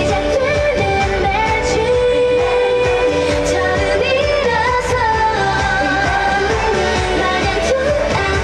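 Female K-pop group singing live into handheld microphones over an upbeat pop backing track, amplified through stage loudspeakers.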